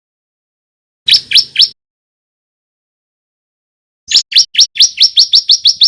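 Bar-winged prinia (ciblek) song of sharp, quickly rising chirps: three in quick succession about a second in, then after a pause a fast run of about five chirps a second starting near the end.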